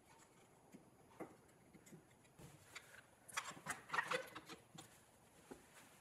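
Faint taps and clicks of wooden pieces and bar clamps being handled on a wooden workbench, with a quick run of louder clicks and knocks from about three and a half to four and a half seconds in.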